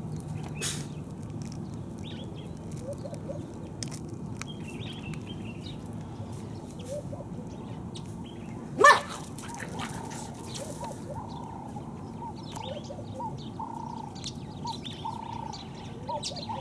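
A Jack Russell terrier gives one sharp bark about nine seconds in, over a steady background hiss. Faint short chirps come and go throughout.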